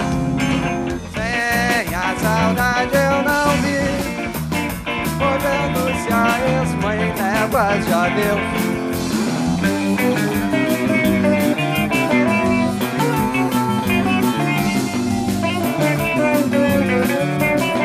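Live rock band playing: electric guitars and bass over a steady beat, with a lead line that wavers and bends in pitch in the first half.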